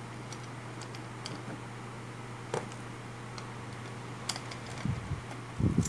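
A few light metallic clicks as steel E-I laminations are pushed and tapped into an output transformer's core stack with a metal rod, over a steady low hum.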